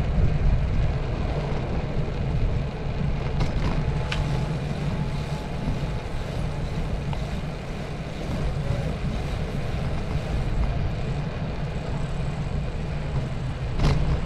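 Steady low rumble of wind and road noise picked up by a bicycle-mounted GoPro HERO8 while riding, with a few short rattles, one about four seconds in and another near the end.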